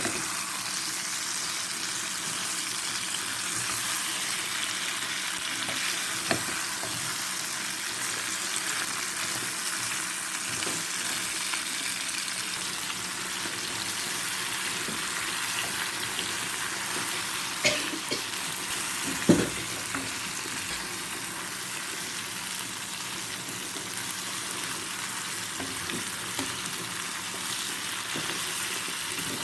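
Chicken feet sizzling in a hot pan, a steady frying hiss, with a few sharp knocks from utensils, the loudest about two-thirds of the way through.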